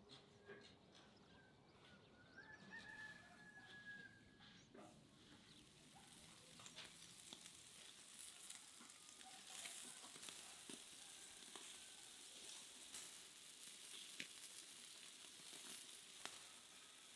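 Meat and quail sizzling over a charcoal grill, a steady hiss full of small crackles and pops as fat drips onto the coals, starting about five seconds in. Before it, a single faint drawn-out rooster crow.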